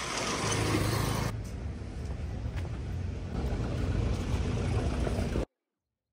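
Vehicle noise: a steady low rumble with hiss, cutting off suddenly near the end.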